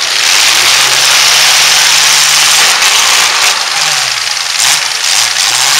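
Demolition derby pickup truck engines running hard, loud and steady, with the engine pitch dipping and climbing again in the second half as a truck throttles back and accelerates.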